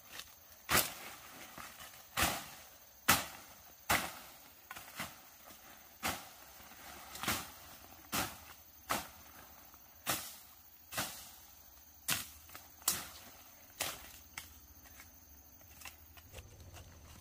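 Digging tool striking into earth in repeated sharp strokes, about one a second, while digging out brown tubers; the strokes stop about sixteen seconds in.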